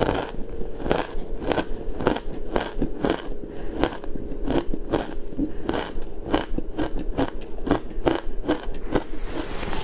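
Close-miked crunching of a mouthful of matcha shaved ice being chewed: a steady run of crisp crunches, about one and a half to two a second.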